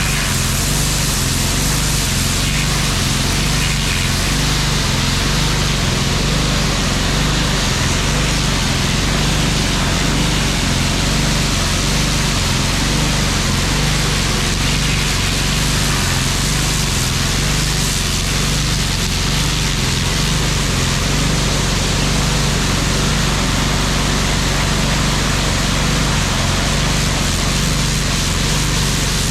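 Gas-engine pressure washer running steadily, its small engine humming under the loud hiss of the high-pressure water jet on concrete.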